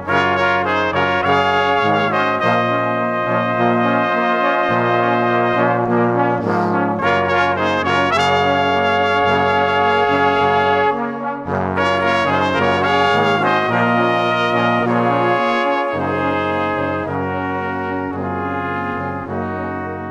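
Background music: layered, held chords that change every second or two.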